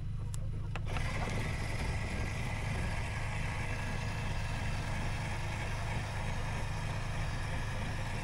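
Small electric gear motor of a battery-powered automatic chicken coop door running steadily. It starts with a click about a second in, over a steady low hum.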